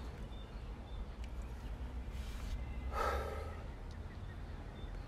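A man's wordless breathing: a quick breath in, then about three seconds in a louder, breathy gasp of delight that fades within half a second. A steady low rumble lies underneath.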